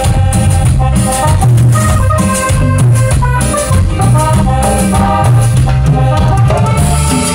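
Live cumbia band playing loud through the stage sound system: a steady bass line under a melody, with a steady percussion beat on top.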